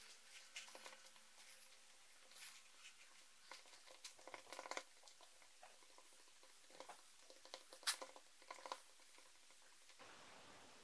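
Faint, scattered soft taps and clicks of fingers pressing DAS modelling clay into a LEGO brick mould frame, a little busier in the middle, with one louder tap about eight seconds in.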